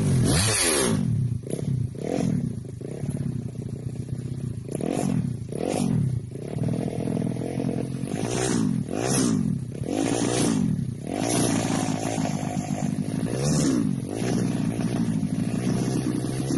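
Drag motorcycle engine being revved in repeated throttle blips, its pitch climbing and dropping again and again. Near the end it settles to a steady idle.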